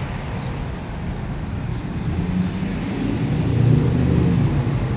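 A motor vehicle passing on the street, its low engine rumble growing louder about halfway through over steady traffic noise.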